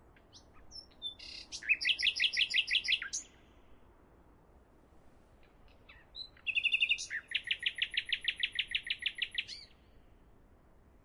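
A songbird singing twice: each song opens with a few varied high notes, then runs into a fast, even series of repeated chirps, about seven a second, the second song longer than the first.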